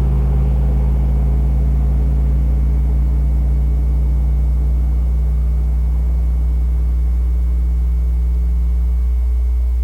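5.3-litre LM7 V8 truck exhaust through a single-chamber performance muffler, holding a steady deep drone at an even engine speed just after a let-off. Its pitch sinks slightly near the end as the engine slows.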